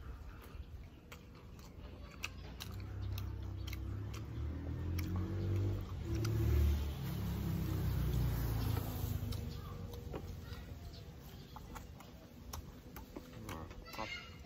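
A motor vehicle's engine passes by, swelling over a few seconds and then fading away, with scattered small clicks.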